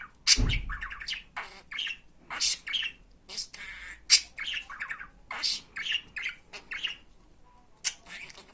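Budgerigar chattering: a rapid string of short, high squawks and chirps with warbled pitched phrases. There is a thump about half a second in.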